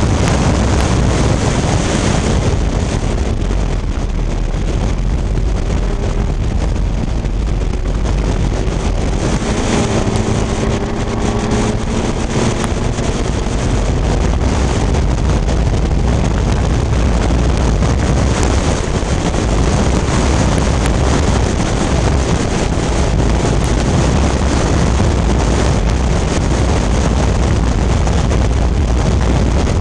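Onboard sound of a vintage Fiat race car at speed: its engine running hard under heavy wind buffeting on the microphone, with a faint rising engine note about ten to thirteen seconds in.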